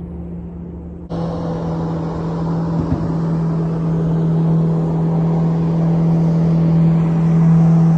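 Road vehicle running: a steady engine hum with a wash of road noise. The noise comes in abruptly about a second in and grows gradually louder.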